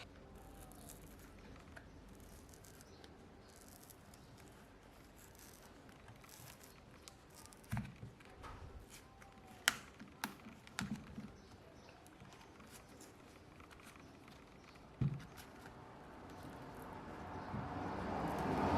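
Small handling noises of repair work on a phone: a few short, sharp clicks and taps of tools and parts, mostly in the middle. Near the end a steady rushing noise rises.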